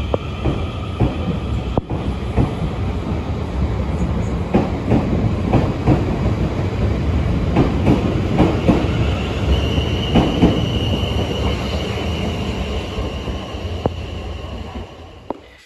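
South Western Railway electric multiple-unit train running out along the platform. Its wheels rumble and clack over the rail joints, a thin high wheel squeal comes in about ten seconds in and lasts a few seconds, and the sound fades near the end as the last car leaves.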